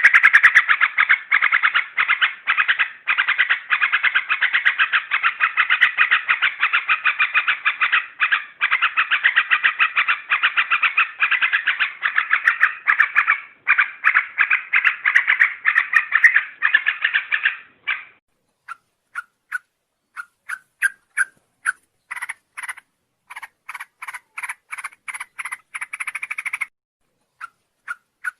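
Yellow-vented bulbul (trucuk) calling, a recorded lure call: a dense, rapid chatter of repeated notes for about eighteen seconds, then breaking into short separate notes at a steady spacing.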